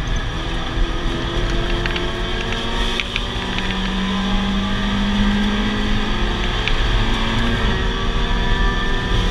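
Mazda Miata race car's four-cylinder engine running hard under acceleration, heard from inside the stripped cabin, its pitch climbing slowly, with wind and road noise.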